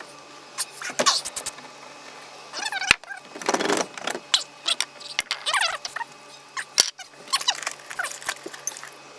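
Metal hand tools clinking and rattling, with short squeaks, as a toolbox is rummaged through for a socket.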